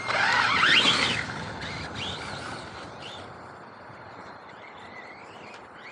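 RC monster truck's electric motor whining, rising and falling in pitch as the throttle is worked for about the first second. Then it drops away to a faint background.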